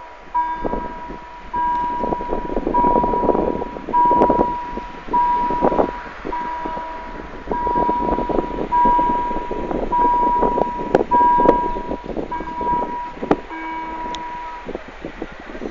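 Railway level crossing warning bell ringing: a single electronic tone pulsing steadily, a little slower than once a second, while the barriers are down. The tone stops shortly before the end. Bursts of rushing noise come and go underneath it.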